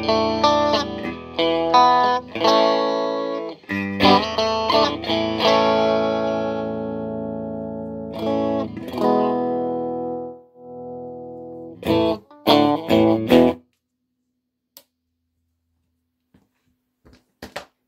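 Electric guitar played through a Fender Champ tube amp modded to a Vibrochamp, a slightly driven tone: a run of strummed chords, one chord left to ring out and fade, then a few short stabs. After that the amp goes quiet, with a few small clicks near the end.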